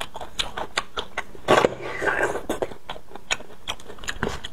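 Close-miked eating sounds of sucking marrow out of roasted beef bones and chewing: a run of short wet mouth clicks and smacks, with a louder slurp about a second and a half in.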